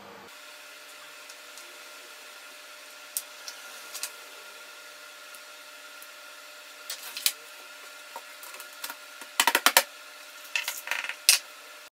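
Small sharp clicks and taps from parts of a MacBook Pro being handled and fitted back together, a few spread out and then a quick cluster near the end, over a steady faint hum.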